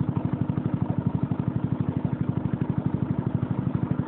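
A small boat's engine running steadily, with an even chugging beat of about ten to twelve pulses a second.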